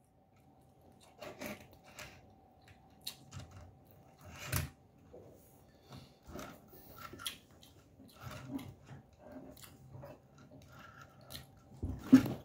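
Quiet eating sounds: noodles slurped and chewed, with scattered light clicks of wooden chopsticks against a ceramic bowl. A louder one about four and a half seconds in, and the loudest just before the end.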